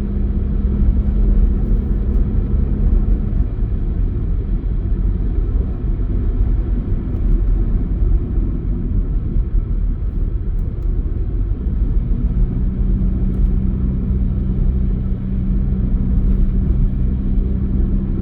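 A car driving: steady low engine and road rumble, with a humming tone that fades out a few seconds in and returns about two-thirds of the way through.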